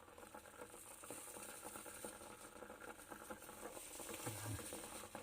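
Water boiling and spitting in a small aluminium bowl on a stove as wet gold concentrate is cooked dry: a faint, dense crackle of bubbling.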